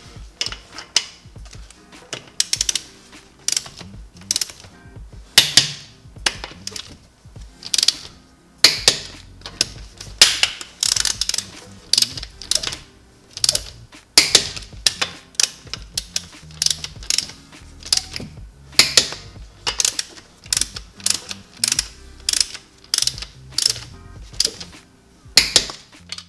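Hand ratchet clicking in irregular runs of quick strokes as the wheel's lug nuts are run down and snugged lightly for seating.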